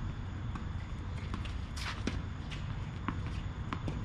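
Tennis ball bounced on a hard court before a serve: a string of sharp knocks about one every two-thirds of a second, the loudest about two seconds in, over a steady low hum.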